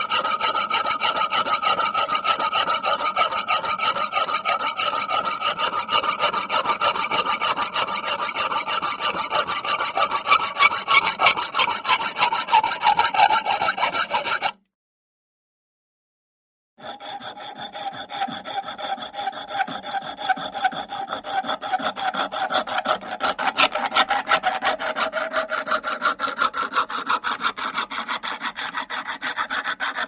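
Handsaw sawing with steady, even back-and-forth strokes, in two runs separated by a silent pause of about two seconds near the middle.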